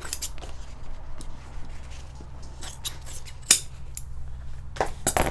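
Scissors cutting excess upholstery cover material: a scattered series of short snips, the loudest about three and a half seconds in and a quick cluster near the end, over a steady low hum.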